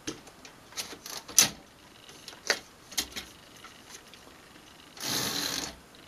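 1949 Remington portable typewriter being handled at its carriage: a string of sharp mechanical clicks and clacks, the loudest about a second and a half in. Near the end comes a rasping slide lasting under a second as the carriage is pushed across.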